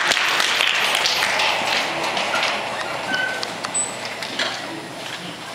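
Audience applause fading away, thinning to scattered claps.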